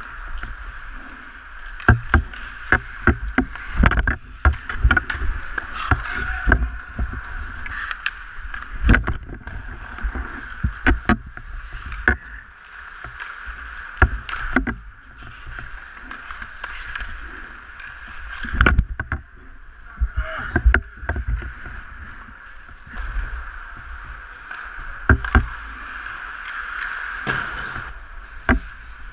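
Ice hockey play from the goalie's mask: skate blades scraping the ice and sticks and puck clacking, with many sharp knocks scattered through, over a steady rink hum.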